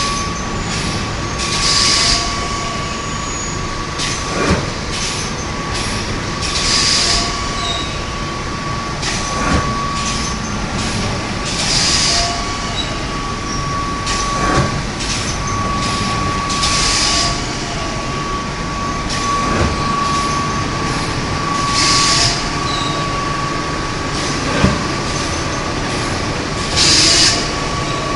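Paper-pulp egg tray production line running: a steady machine hum with a constant whine. A short hiss comes about every five seconds, with a sharp knock between each pair of hisses, as the forming machine works through its cycle.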